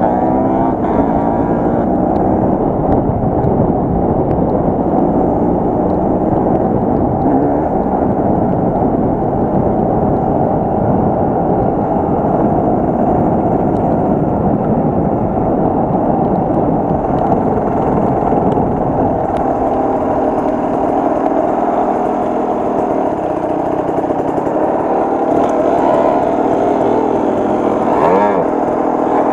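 Enduro motorcycle engine running continuously, its pitch rising and falling with the throttle.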